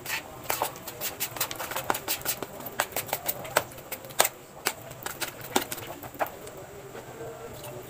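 Hand mixing thick wheat- and rice-flour batter in a stainless steel bowl: irregular wet squelches and sharp clicks as the fingers squeeze the batter and knock the bowl. The batter is being worked smooth so it does not go lumpy.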